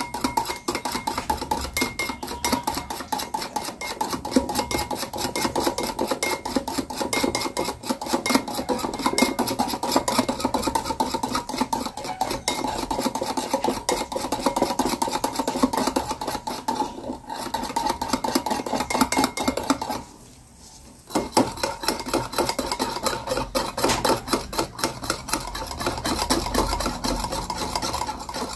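Metal wire whisk rapidly beating instant coffee, sugar and water into a thick paste in a glass bowl, its wires scraping against the glass in fast, even strokes. The whisking stops for about a second about two-thirds of the way through, then carries on.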